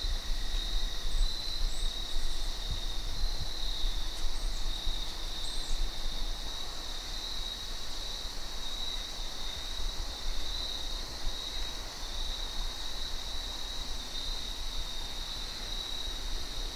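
Steady insect chorus, a continuous high trill that pulses slightly, with a low rumble on the microphone underneath and a few faint bird chirps in the first few seconds.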